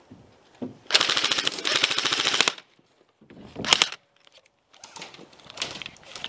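Airsoft rifle firing full-auto: a long burst of about a second and a half, then a short burst about a second later, each cutting off abruptly, with lighter rattling and clicks near the end.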